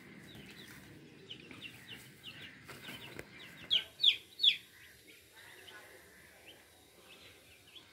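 Young chicks peeping: a scatter of short, high, falling chirps, with three louder peeps close together about four seconds in.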